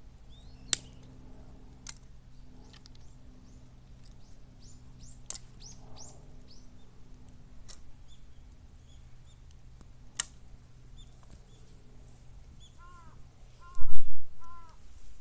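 Bamboo burning in a bottomless 18-litre can fire: scattered sharp pops and, midway, a run of short falling whistles. Near the end a crow caws several times, with a couple of loud thumps among the caws.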